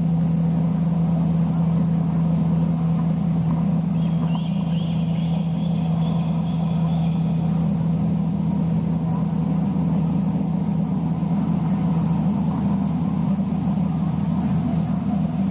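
Steady low mechanical drone, unchanging in pitch and level. A faint high-pitched call sits over it for about three seconds, starting about four seconds in.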